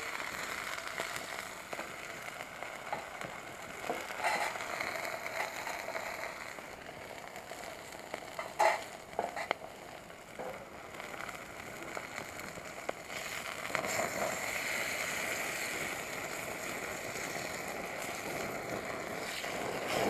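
Meat frying in a thin frying pan held over a wood fire: a steady sizzle with crackling from the burning wood and a few sharper pops, the loudest about halfway through.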